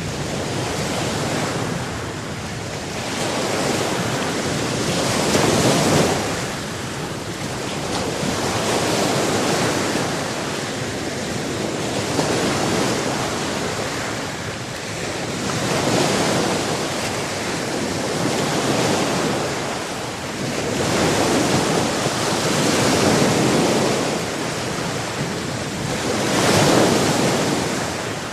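Sea waves washing onto a shore, the surf swelling and falling back every few seconds, with the strongest surges about six seconds in and near the end.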